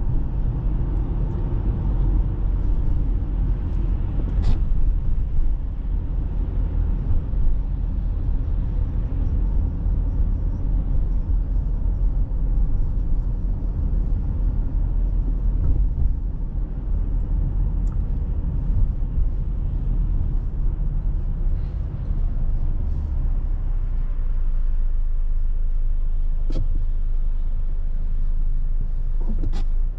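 Steady low rumble of a moving vehicle, road and wind noise, with a few faint clicks.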